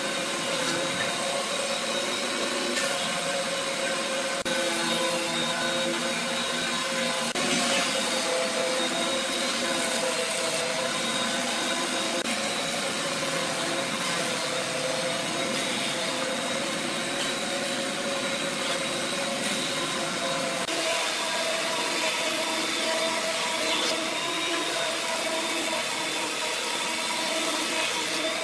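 Thickness planer running with a steady whine while wooden boards are fed through and planed.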